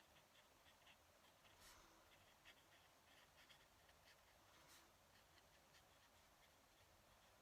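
Fountain pen nib scratching on paper in faint short strokes, with a couple of longer swishes.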